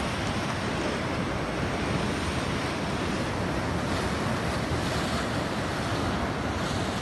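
Ocean surf breaking and washing over the rocks of a breakwater: a steady, even rush of waves.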